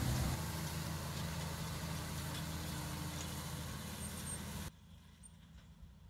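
Deutz-Fahr tractor engine running steadily while driving a round baler. About two-thirds of the way through it cuts suddenly to a much fainter engine hum.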